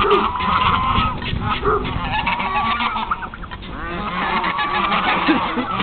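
A flock of white domestic geese honking, many calls overlapping, easing off briefly about midway and then picking up again.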